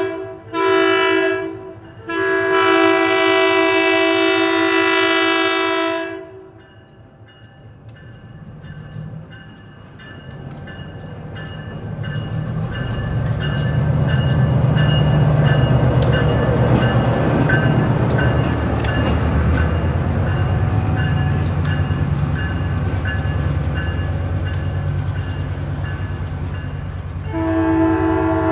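EMD SW900 switcher locomotive sounding its horn, a short blast and then a long one. Its eight-cylinder 567 diesel then comes up louder as it passes, with irregular clicking from the wheels on the rails. The horn sounds again near the end.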